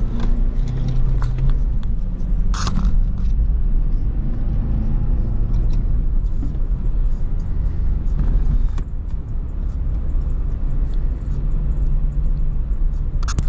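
Acura RSX driving, with a steady low engine and road rumble and a brief sharp click about two and a half seconds in.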